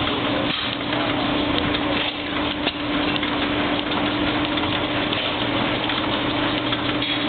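Antique hit-and-miss stationary gas engines running, a steady mechanical noise with a constant low hum.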